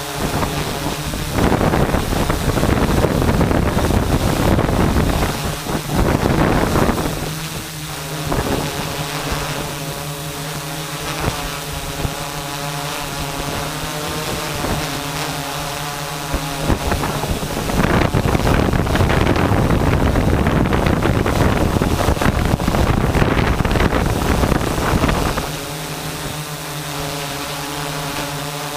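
Vehicle engine idling steadily, with gusts of wind buffeting the microphone twice for several seconds each.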